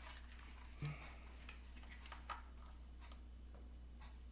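Faint, scattered light clicks and taps of small plastic toy pieces being handled and pushed into place, over a low steady hum.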